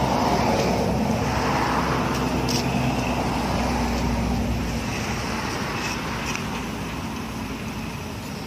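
Road traffic noise: a vehicle going by, loudest in the first couple of seconds and then slowly fading.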